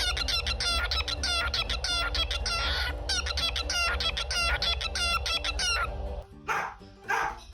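A bird giving a rapid run of chicken-like clucking calls, about three a second, over a steady low hum. The run breaks off about six seconds in and is followed by a few separate calls.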